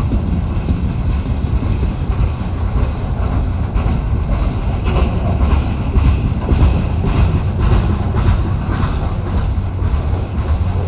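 Freight train rolling past: a steady, heavy rumble, with the wheels clacking over rail joints in repeated runs through the middle of the stretch.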